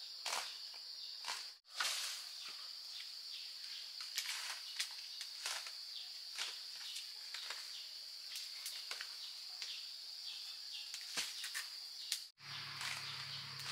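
Steady high-pitched insect drone, with many irregular light knocks and clicks over it. A low steady hum comes in near the end.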